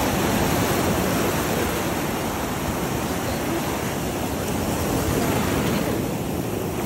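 Ocean surf washing onto the beach, a steady rushing that swells a little about five seconds in, with wind buffeting the microphone.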